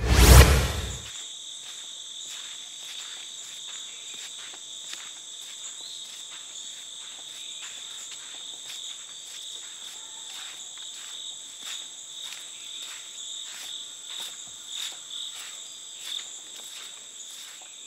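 Steady high-pitched chorus of rainforest insects, two held tones that run unbroken, with soft footsteps on a dirt path. A loud deep sound effect fades out within the first second.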